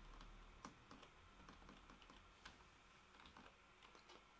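Faint, irregular computer keyboard keystrokes.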